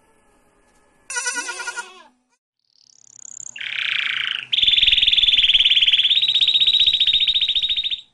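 A goat kid bleats once, briefly, with a quavering pitch. Then a logo sound effect: a rising swoosh followed by a loud, rapidly pulsing electric buzz that steps up slightly near six seconds and cuts off at the end.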